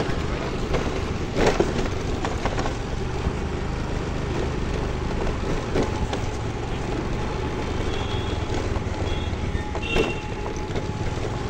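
Small scooter engine running as the scooter is ridden slowly, with steady road and wind noise and a few short knocks.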